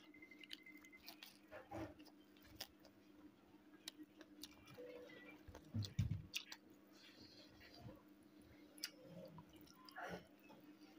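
Close-up chewing and biting of smoked pork wrapped in lettuce: faint wet mouth sounds and crisp clicks, the loudest bite about six seconds in, over a low steady hum.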